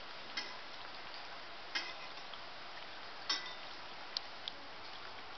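Besan papdi deep-frying in hot oil in a metal kadhai, a steady sizzle, with a metal spatula clinking against the pan five times.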